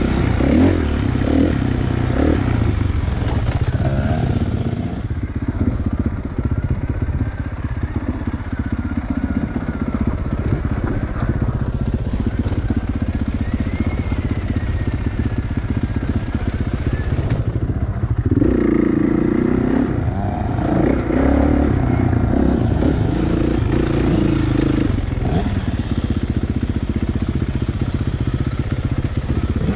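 Kawasaki KX450F's single-cylinder four-stroke engine running on trail, revving up and down as the throttle is worked, with rattling and clatter from the bike over rough ground.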